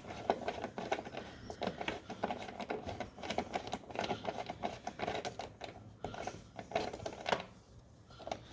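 A hand ratchet clicking fast and irregularly as the 10 mm bolts holding a car fender are backed out. The clicking dies away near the end.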